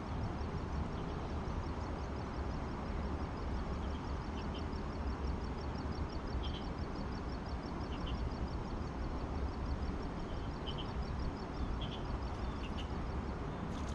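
Outdoor riverside ambience: a steady low rumble with short high chirps from small birds every second or two. A faint, fast, high ticking trill runs behind them through the middle.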